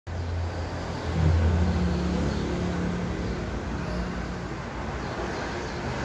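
A low machine hum, its pitch stepping up about a second in, then fading away after about four seconds.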